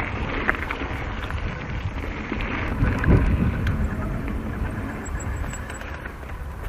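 Mountain bike riding on dirt singletrack: a steady rumble of wind buffeting the action-camera microphone and tyres rolling over the trail, with scattered small rattles and ticks.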